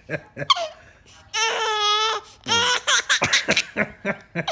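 A baby's long, high-pitched squealing cry held for about a second, then laughing in quick rhythmic bursts.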